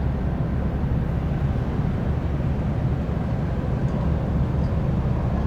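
Steady low rumble of a car ferry's engines.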